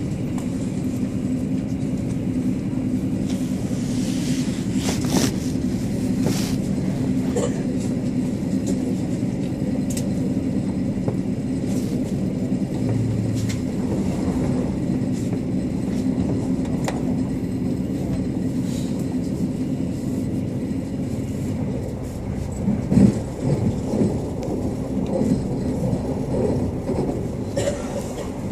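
Inside a moving regional train: a steady running rumble and hum of the carriage on the rails, with scattered clicks and a few louder knocks a little past the middle.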